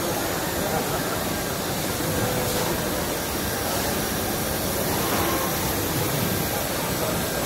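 Cosmec Fox 22 CNC router running, an even, unbroken machine hum and hiss.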